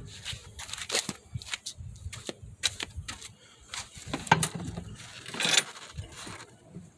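Irregular clicks, taps and knocks of a lawnmower and its parts being handled while the old oil is drained, with a short scraping rush about five and a half seconds in.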